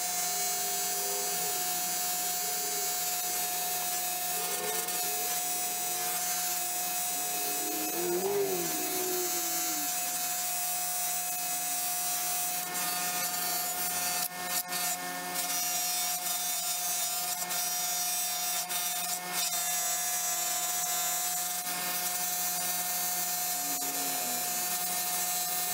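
Electric bench buffer running with a steady motor whine, its cotton buffing wheel rubbing against a screwdriver's steel shank as the shank is polished. The rubbing note shifts as the shank is worked across the wheel.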